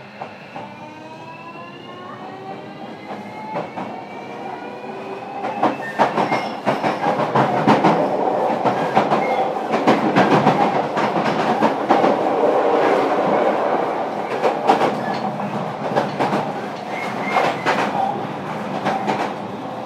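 Running sound of a JR Kyushu 305 series electric train, heard from inside a motor car as it accelerates from low speed. The traction motors and inverter whine in several tones that rise in pitch over the first few seconds. The running noise then grows louder, with the wheels clicking over rail joints.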